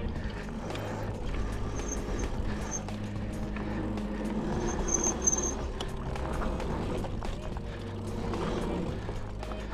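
Mountain bike rolling down a rough dirt trail: a steady rush of tyre and wind noise with frequent clicks and rattles from the bike over bumps, and a few short high squeaks about two and five seconds in.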